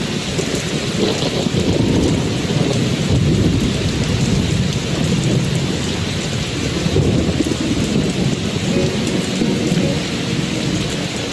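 Steady rain sounds with a continuous low rumble of thunder, a rain-and-thunderstorm ambience track.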